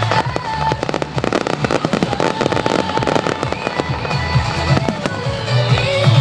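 Fireworks display finale: dense, rapid crackling and bangs going off continuously, with music playing alongside.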